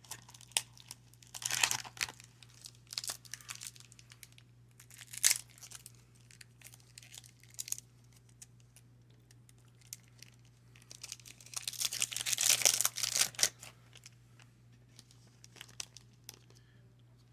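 Foil wrapper of a baseball card pack torn open and crinkled, with light clicks and snaps of the cards being handled. The louder tearing and crinkling comes about a second and a half in and again for a couple of seconds past the ten-second mark.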